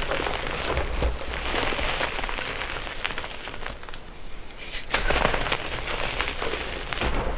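Gym chalk being crushed, a dense run of crunching and crackling, which dips about four seconds in and picks up again a second later.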